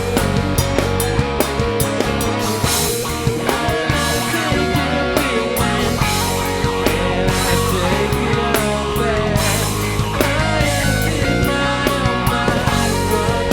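Background rock music from a live band recording, with drums keeping a steady beat under guitars.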